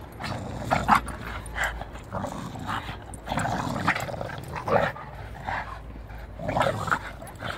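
An English bulldog and a Staffordshire bull terrier growling and breathing hard in short, irregular bursts while they tug against each other on one rubber toy.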